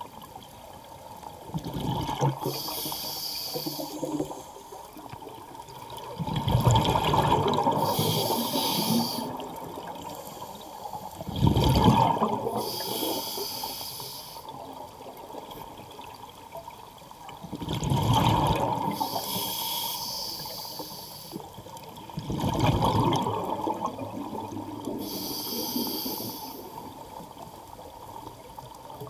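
Scuba diver breathing through a regulator underwater: a high hiss with each inhale and a loud burst of bubbles with each exhale, about one breath every five seconds.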